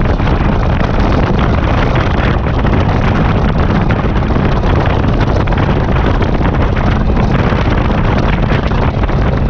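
Steady, loud wind rush buffeting the microphone of a touring motorcycle at road speed, over the motorcycle's engine and road noise.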